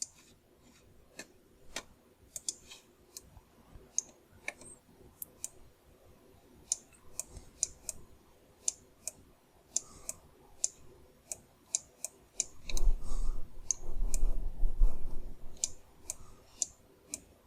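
Irregular sharp clicks of a computer mouse and keyboard, sometimes in quick pairs. In the second half a louder low rumbling noise lasts about three seconds.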